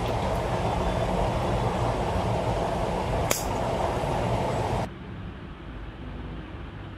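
A steady rushing noise with one sharp click about three seconds in, a small knife slicing through a carrot onto a stone cutting board. The rushing cuts off abruptly about five seconds in, leaving a low hum.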